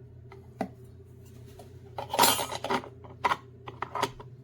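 Cups being handled and set down on the coffee maker: a series of clinks and knocks, the loudest about two seconds in with a brief ring.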